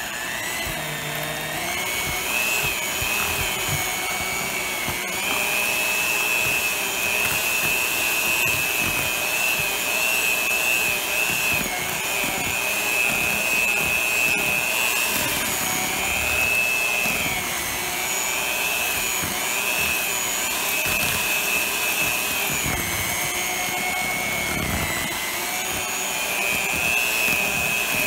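Black & Decker electric hand mixer running steadily, its beaters whisking cake batter in a bowl. The motor's high whine wavers a little in pitch throughout.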